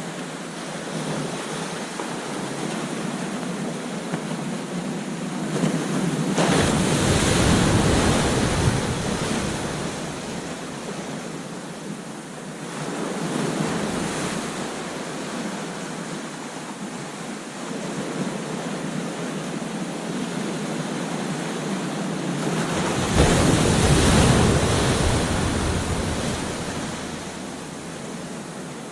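Ocean surf on a beach: a steady wash of breaking water, with two big waves crashing about a quarter of the way in and again near the end, and a smaller one in between.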